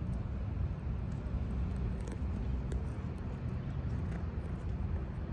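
Steady low rumble of distant city traffic, with a few faint clicks on top.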